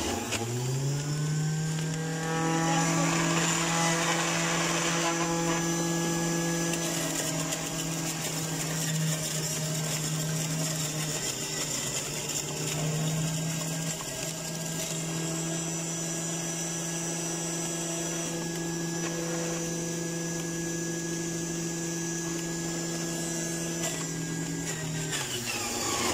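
Electric centrifugal juicer running: the motor spins up to a steady high hum in the first second and holds there. A spell of shredding noise from about 2 to 5 seconds in is produce being ground. The motor pitch sags briefly near the end.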